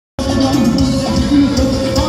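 Amplified live band music through a stage PA system, loud, with a steady drumbeat of about four strikes a second; it cuts in abruptly just after the start.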